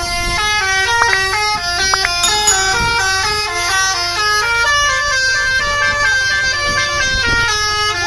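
Bus telolet horn, a Basuri V3 multi-tone air horn, playing a fast tune of stepped notes that jump up and down in pitch.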